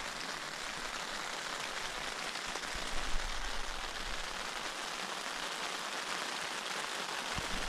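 Steady rain falling, an even hiss with scattered sharper drop ticks.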